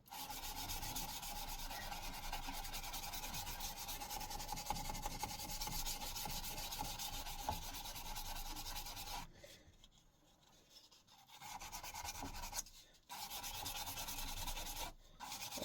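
Abrasive paper sanding a metal axe head: a steady scratchy rubbing that stops for about two seconds past the middle, then resumes with two brief breaks near the end.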